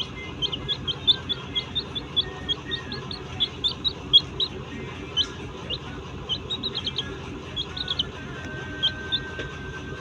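Pet birds chirping in many short, sharp, high calls in quick irregular succession, squabbling as they settle down to sleep. A faint steady tone starts near the end.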